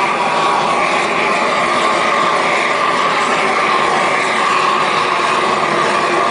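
A propane roofing torch burning as a loud, steady rush of noise, melting the underside of a roll of bitumen torch-down membrane as it is unrolled.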